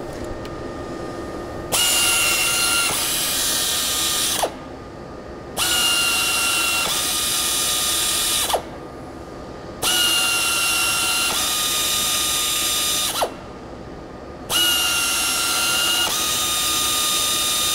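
FlexArm pneumatic tapping arm's air motor running in four bursts of about three seconds as it taps threaded holes into a steel soft jaw. Each burst shifts pitch partway through and falls away as the motor stops.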